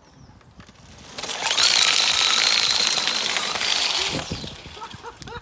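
Electric go-kart pulling away and sliding, its hard 3D-printed polycarbonate drift rims on the rear wheels scraping across tarmac with a rough grinding noise and a steady high whine. The sound builds about a second in and fades near the end.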